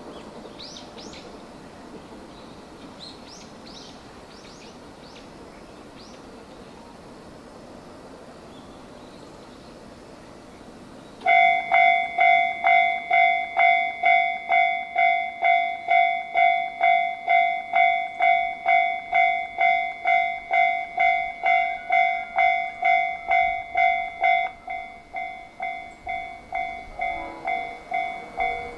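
Japanese railway level crossing's electronic warning bell: after about 11 seconds of quiet outdoor background with a few short chirps, it starts suddenly and rings steadily at about two dings a second, a little quieter from about 24 seconds in, warning that a train is approaching.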